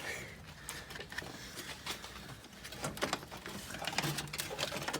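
Scattered light clicks and rattles of car body parts being worked loose by hand, getting busier in the last couple of seconds.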